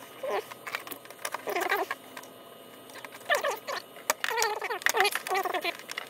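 A series of short, high-pitched calls from an unseen animal, rising and falling in pitch and coming in quick runs, mixed with a few light clicks.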